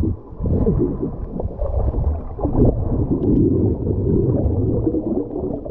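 Muffled rumbling and gurgling water noise, heard through a camera held underwater.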